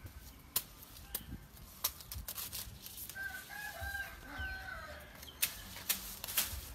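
Sharp knife strikes cutting into a fleshy elephant foot yam stalk: a few single chops early on, then a quicker run of them near the end as the leaves are hacked off. A rooster crows in the background for about two seconds in the middle.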